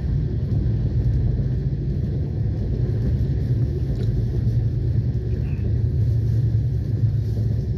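Moving passenger train heard from inside the coach: a steady, unbroken low rumble of the train running along the track.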